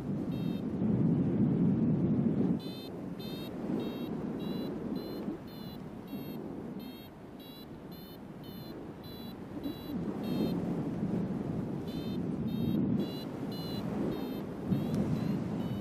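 Paragliding variometer sounding its climb tone: short high beeps, about two a second, pausing for a moment and then starting again, over wind rushing on the microphone. The beeping signals lift, as the glider climbs slowly in a small thermal.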